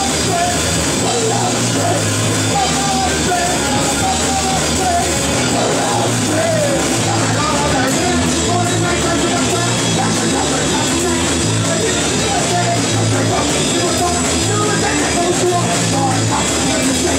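Live punk rock band playing loud, with electric guitar, a drum kit and a vocalist singing into the microphone.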